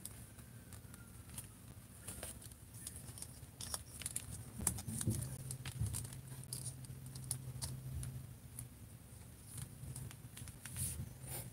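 Small scattered plastic clicks and rubbing from a Marvel Legends Skaar action figure being handled and posed, its head pushed back onto its large neck ball peg.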